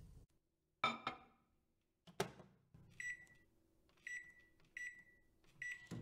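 Microwave oven being used: a couple of knocks and a sharp clack, then four short electronic keypad beeps over the last three seconds, with a faint steady hum under them.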